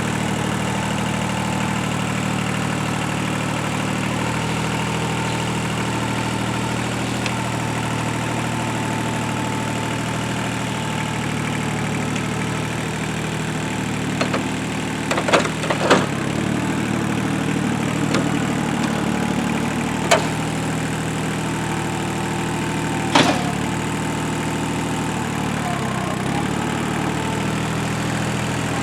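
A tractor's diesel engine running steadily at idle, broken by a few sharp knocks from the equipment at work, the loudest a cluster in the middle and two single ones later.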